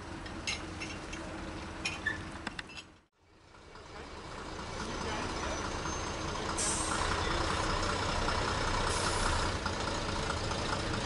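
A few clunks and clicks, then, after a brief drop-out, a first-generation diesel multiple unit's engines running steadily at a station platform, with two short hisses of air about two seconds apart.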